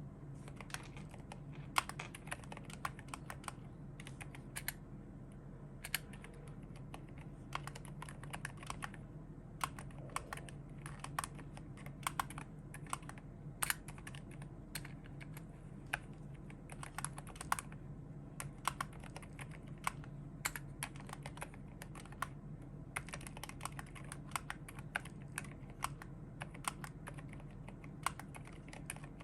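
Typing on a Glorious GMMK Pro mechanical keyboard with Akko Haze Pink silent linear switches and PBT MA-profile keycaps: a continuous run of irregular keystrokes over a low steady hum.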